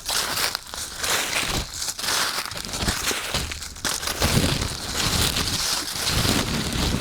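Footsteps crunching through dry fallen leaves at a steady walking pace, each step a crackling rustle.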